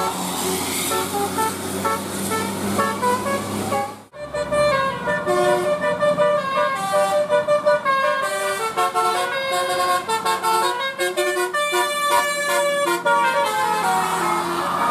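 Indonesian bus 'telolet' musical air horn playing a tune of short, stepped tooting notes, over a low steady engine hum for the first four seconds. The sound breaks off sharply about four seconds in, then the horn tune carries on.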